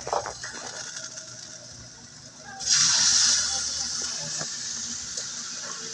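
Fish pieces going into hot oil in a wok: a sudden loud sizzle about two and a half seconds in that slowly eases to a steady sizzle.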